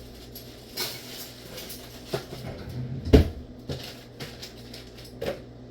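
Scattered knocks and clinks of dishes and a spoon being handled at a kitchen counter, about seven separate hits, the loudest a sharp knock about three seconds in.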